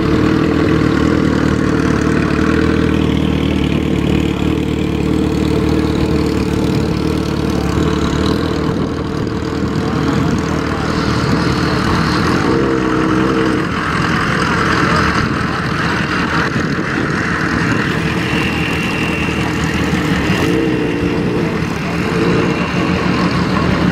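Pickup truck engines running at a slow, steady idle as a lifted Ford Super Duty and a 1957 Chevrolet pickup creep past at walking pace. The drone is steady, with brief wavers in pitch about halfway through and again near the end.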